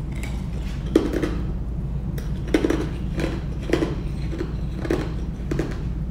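Ice cubes crunched between the teeth, a crunch every second or so, over a steady low hum.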